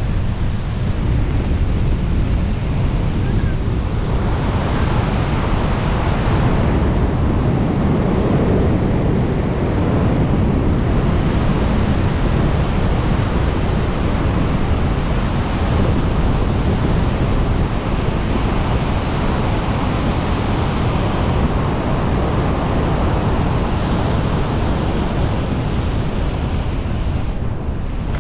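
Air rushing over a helmet-mounted camera's microphone during wingsuit flight: a loud, steady wind rush that eases slightly near the end.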